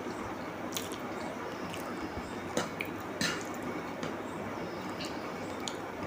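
Close-miked eating: wet, squishy chewing with a few short sharp bites or crunches, over a steady hiss.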